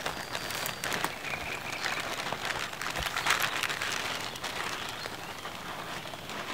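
A large printed sheet rustling and crinkling as it is unrolled and pressed around a pine trunk, with a stream of small crackles.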